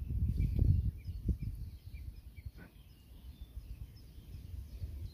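Wind buffeting the microphone in gusts, loudest in the first second and a half, with small birds chirping in the background and one falling whistled note about two and a half seconds in.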